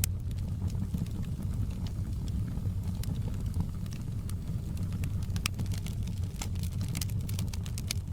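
Wood fire crackling in a fireplace: irregular sharp pops and snaps over a steady low rumble of the flames, the pops coming thicker in the second half.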